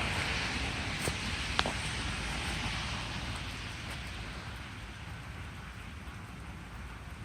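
Steady hiss of rain falling, fading somewhat after about three seconds, with two small sharp clicks about a second in.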